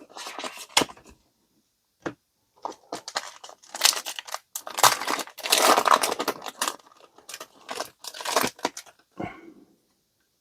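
Foil wrapper of a trading card booster pack being torn and crinkled by hand, in irregular rustling bursts that are loudest in the middle.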